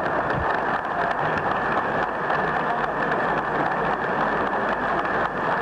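Audience applauding steadily, a continuous crackle of many hands clapping.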